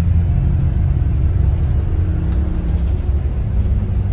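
Steady low rumble of a moving bus's engine and tyres, heard from inside the passenger cabin.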